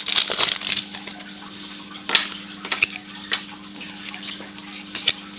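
Trading card pack wrapper crinkling in the first second, then scattered light clicks and snaps of baseball cards being handled and flipped through, over a steady low hum.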